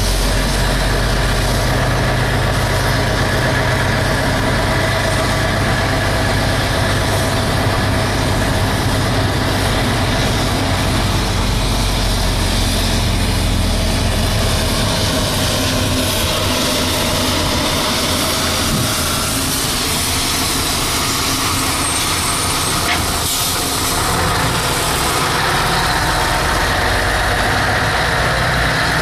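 Scania 143 450's 14-litre V8 with an open exhaust running steadily under way, a deep low note that weakens about halfway through.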